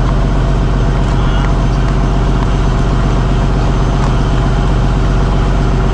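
Fishing trawler's inboard diesel engine running at a steady, constant low drone.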